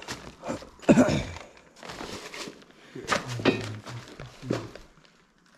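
Footsteps over a floor littered with debris and broken furniture, with a loud thunk about a second in and a few more knocks a couple of seconds later.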